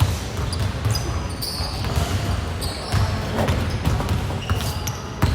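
Basketballs being dribbled on an indoor court: many irregular, overlapping thumps echoing in a large hall.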